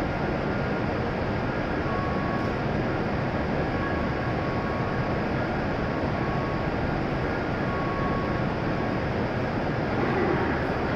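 Steady rushing hum of a W7 series Shinkansen trainset standing at the platform with its onboard equipment running. A faint short tone recurs a few times.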